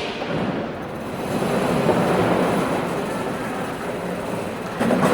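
Airport ambience: a steady rumbling noise that swells about two seconds in and then eases, with a brief clatter near the end.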